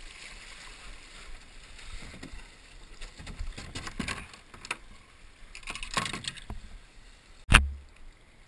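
Hard plastic kayak hull (Wilderness Systems Ripper) being dragged over rock, with irregular scrapes and knocks of the hull and paddle against the stone. A single sharp, heavy knock about seven and a half seconds in is the loudest sound.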